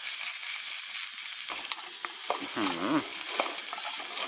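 Chilies and garlic sizzling in hot oil in a wok over high flame, with the spatula clicking and scraping against the pan as it is stirred.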